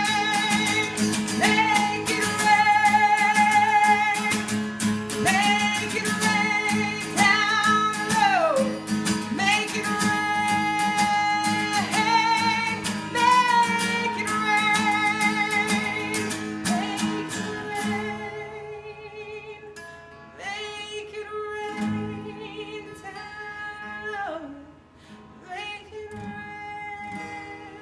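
Acoustic guitar strumming under a voice singing a wavering melody with slides between notes. About two-thirds of the way through the guitar drops out and the voice carries on alone, quieter.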